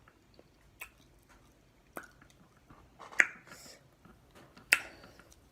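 A person chewing food with a few sharp, wet mouth smacks, about four in all.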